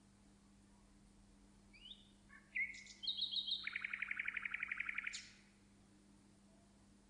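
A songbird singing one phrase about two seconds in: a few short chirps rising in pitch, then a fast, even trill of a dozen or so notes a second lasting about a second and a half. A faint steady low hum runs underneath.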